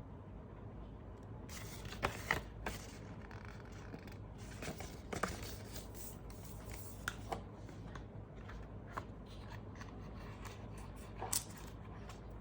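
Hands handling unboxing packaging and accessories: rustling with scattered sharp clicks and taps, starting about a second and a half in, over a low steady hum.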